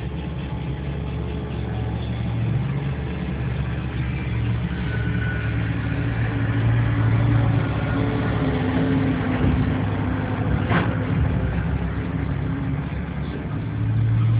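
Tatra Terrno1 truck's diesel engine running steadily as it drives over rough earthworks, heard from inside the cab, growing louder twice as it works harder. A single sharp knock comes about two-thirds of the way through.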